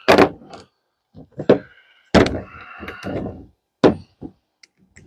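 Metal tool knocks and clanks: a 10 mm socket wrench being fitted to and worked on the bolts holding the wiper motor. About five sharp knocks with a short ring after some, the loudest near the start and about two seconds in.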